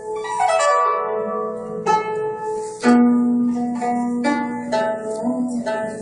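Guzheng (Chinese plucked zither) played solo: a series of plucked notes that ring on after each stroke, with a quick run down the strings about half a second in and a strong low note about halfway through.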